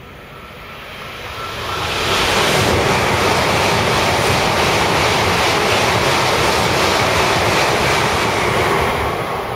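Tokaido Shinkansen bullet train passing straight through a station at high speed. A rush of air and wheel noise builds over the first two seconds, holds loud and steady for about seven seconds as the cars go by, then begins to fade near the end.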